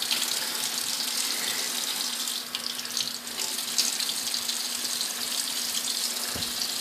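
Tap water running steadily into a sink and splashing while a cut finger is rinsed under it.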